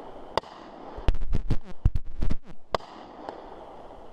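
Fireworks going off: a single sharp crack, then a rapid flurry of loud bangs and pops lasting about a second and a half, then another single crack.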